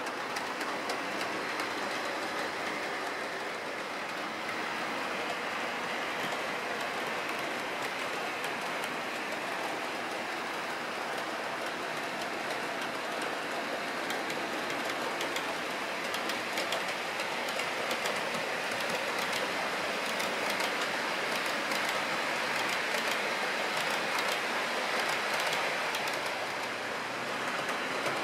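OO gauge model trains running along the layout's track: a steady whirring rush of wheels and motors on the rails. Fine clicks from wheels passing over rail joints grow more frequent near the end.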